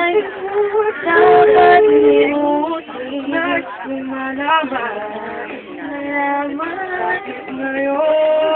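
Singing of a slow love song, with notes held briefly before moving to the next.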